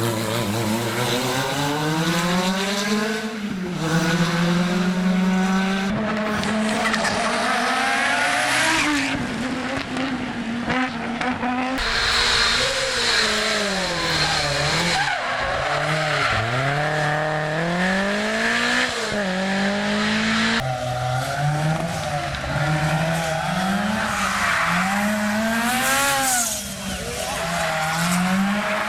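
Rally cars at full throttle on a stage, engines revving up and falling back over and over through gear changes, with tyre squeal; the sound jumps several times as one car gives way to another.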